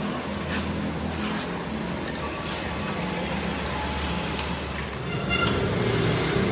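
Restored old diesel engine running steadily, a low even drone that gets a little louder about five seconds in.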